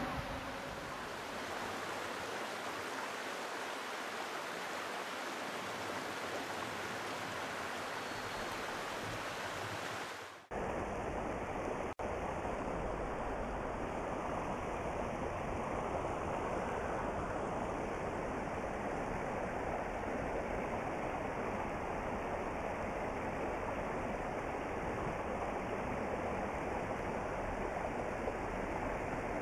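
Steady rushing of a clear mountain stream running over rocks. About a third of the way in the sound drops out for a moment and comes back fuller and deeper, then runs on unchanged.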